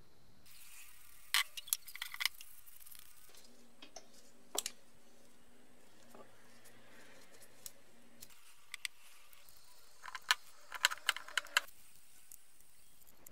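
Scattered sharp clicks and light knocks of a metal brake caliper and masking tape being handled on a workbench, with a cluster of quick clicks about ten seconds in, over a faint steady hiss.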